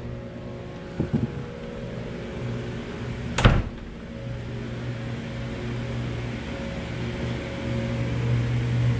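Steady low mechanical hum of laundromat equipment and ventilation, growing louder in the second half. A few light knocks come about a second in, and one loud sharp thump comes about three and a half seconds in.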